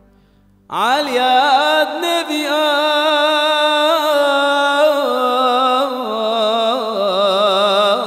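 A brief hush, then a little under a second in a male cantor's voice enters with a rising scoop. He sings a long, heavily ornamented melisma in Moroccan Jewish liturgical style, the pitch wavering and turning continuously.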